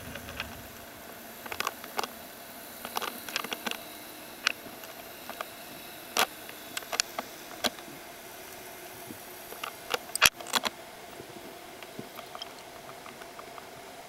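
Underwater sound through a camera housing: irregular sharp clicks and knocks over a faint steady hum, the loudest cluster about ten seconds in.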